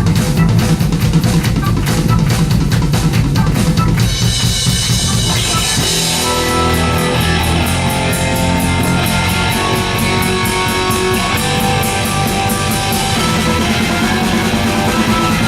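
Live hard rock band playing: a drum-heavy passage for the first few seconds, then around four to six seconds in the band shifts into sustained guitar and bass notes over steady cymbal strokes.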